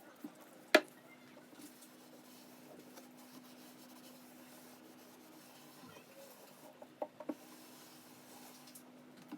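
Rubbing on the wood of a classical guitar under restoration, a faint scratchy rasp, with one sharp knock about a second in and a few quick taps later on. A steady low hum sits underneath.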